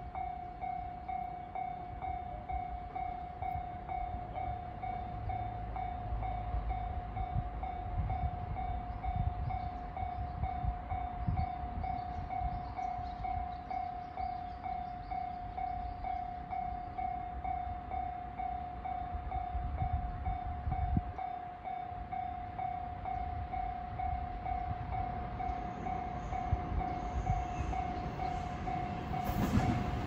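Japanese level-crossing warning bell ringing in a steady, evenly repeating electronic ding. Under it is a low rumble that grows in the last few seconds as a 521-series electric train approaches the crossing.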